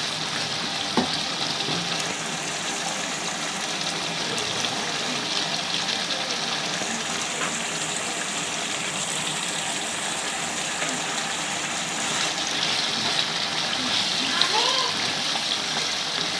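Chicken curry with tomato purée sizzling steadily in a frying pan as a spatula stirs it. There is a single sharp knock about a second in.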